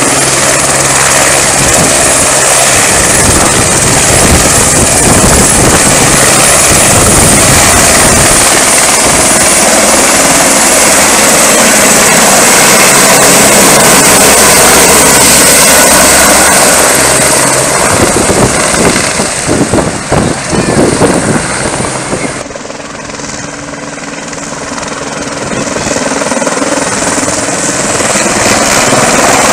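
Firefighting helicopter hovering low over a river to fill its underslung water bucket. Its rotor noise is loud and steady, with a steady high whine. About two-thirds of the way through the sound drops and grows duller, then swells again near the end.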